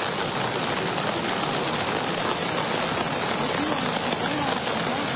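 Heavy rain falling steadily on an umbrella held just above the phone.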